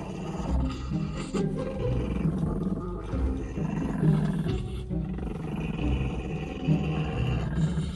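Small long-haired chihuahuas growling at each other as one guards a bag of treats, over background music.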